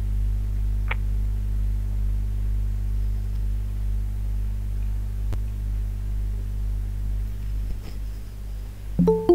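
Steady low electrical mains hum. Near the end a short bright chime sounds: the Google Meet alert that someone is asking to join the meeting.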